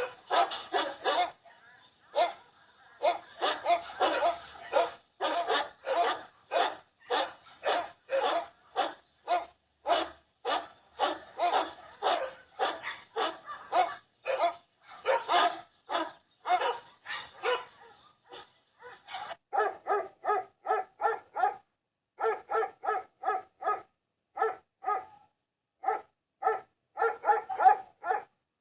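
Dogs barking repeatedly in rapid strings of short barks, about two to three a second. About two-thirds of the way in the barking changes to a clearer-pitched bark that comes in quick bursts of several barks with short pauses between.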